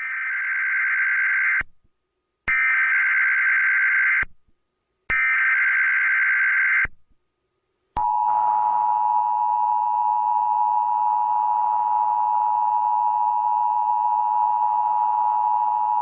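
Emergency Alert System tones: three bursts of SAME digital header data, a harsh warbling screech about 1.7 s each with short gaps between, then the two-tone EAS attention signal, held steady for about eight seconds. Together they signal the start of an emergency alert broadcast, here a tsunami warning.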